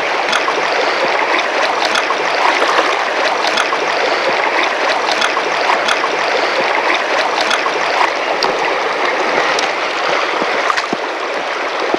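Shallow river riffle rushing steadily over stones, with faint ticks now and then.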